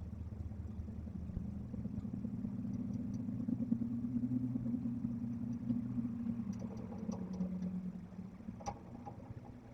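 A motor vehicle's engine running steadily with a low drone, fading away near the end, with a few faint clicks over it.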